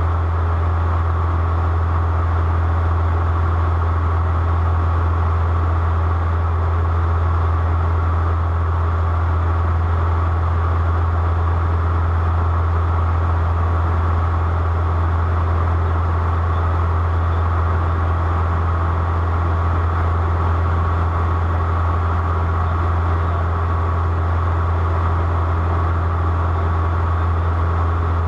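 Steady drone of an airplane's engines, with a strong low hum under a wash of noise that does not change.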